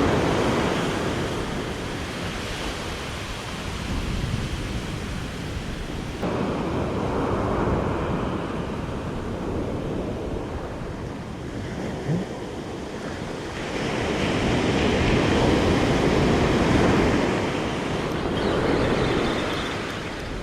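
Ocean surf breaking and washing up the beach, rising and falling with each wave and loudest about two-thirds of the way in, with wind on the microphone.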